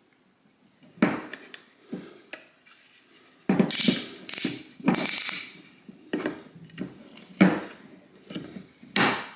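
Hard plastic clunks and knocks from a cordless LED task light being handled, pivoted and folded, with a few louder rustling scrapes in the middle.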